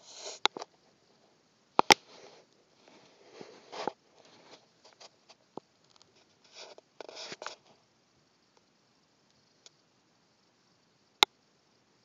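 Intermittent brief rustling and a few sharp clicks or knocks in a quiet room, the two loudest clicks about two seconds in and near the end.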